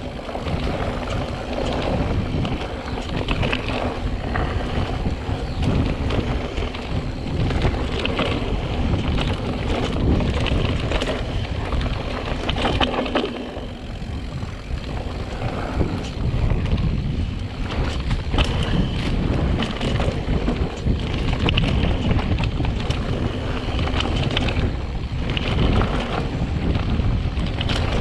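Mountain bike riding fast down a dirt singletrack: knobby tyres rumbling over the dirt with frequent small knocks and rattles from the bike over roots and rocks, under steady wind noise on the microphone.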